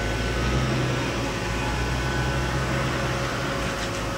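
A machine running with a steady, even hum and a few held tones, with no change in pitch or level.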